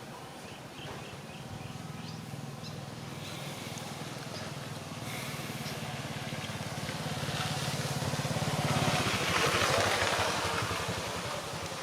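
An engine hum that grows steadily louder to a peak about nine seconds in, then eases off, as of a motor vehicle passing by.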